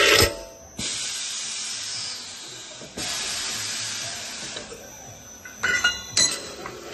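Pneumatic U-bolt bending machine at work: a metal clink, then two long hisses of compressed air about two seconds each, and more clinking of steel parts near the end.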